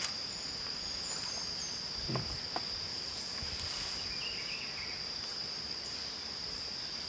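Insects calling in a steady, unbroken high-pitched drone, with a couple of soft knocks about two seconds in.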